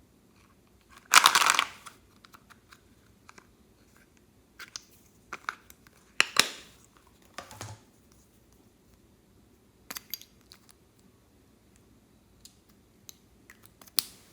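Plastic crinkling in two short loud bursts, about a second in and again about six seconds in, with scattered small clicks and taps in between: slime-making materials and their packaging being handled.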